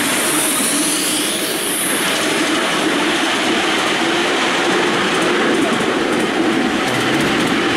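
Miniature railway train running along the track, heard from on board: a steady rumble of the wheels on the rails, with a high squeal that fades out about two seconds in.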